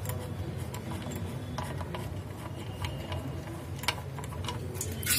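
Engine-oil drain plug being unscrewed by hand from a Mercedes-Benz ML 250 CDI's sump: scattered faint metallic clicks over a steady low hum.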